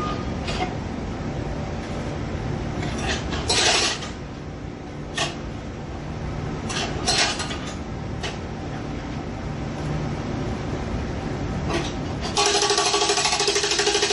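Jackhammer pounding on pavement over a steady low street rumble: a few short bursts of hammering in the first half, then a long run of rapid, evenly spaced blows starting about twelve seconds in.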